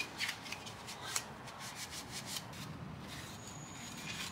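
Cloth rubbing on a plastic interior trim strip: quick, irregular back-and-forth wiping strokes that thin out a little over halfway through.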